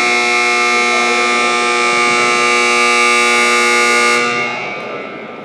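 Gym scoreboard horn sounding one long steady tone that stops about four seconds in and dies away, the horn that ends a period of play.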